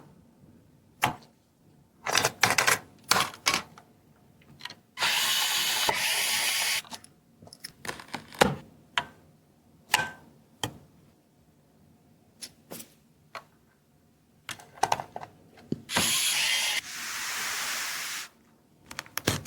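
Clicks, taps and knocks of computer parts and packaging being handled during assembly, with two longer spells of dense rasping noise lasting about two seconds each, about five seconds in and again near the end.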